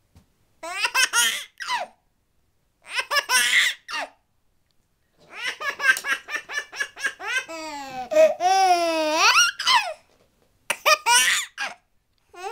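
Baby laughing in four bouts of quick, pulsing giggles. The longest, in the middle, runs into a long high squeal that dips and then rises in pitch.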